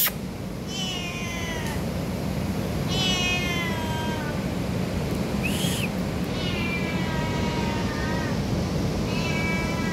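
A cat meowing four times, long drawn-out meows that each slide down in pitch, with a short chirp between the second and third. The cat is hungry. A sharp click sounds right at the start.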